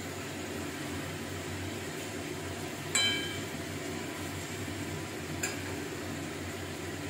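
A sharp metallic clink about three seconds in, ringing briefly, as of a utensil knocking the steel curry pan on the gas stove, and a fainter click a couple of seconds later, over a steady background hiss.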